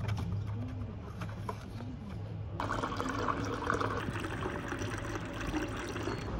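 A few light paper clicks as a tea sachet is taken from its box. About two and a half seconds in, a thin stream of water starts pouring steadily into a ceramic mug holding a tea bag.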